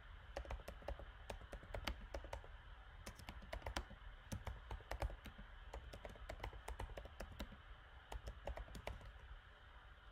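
Typing on a computer keyboard: a run of quick, irregular key clicks that thins out and stops near the end.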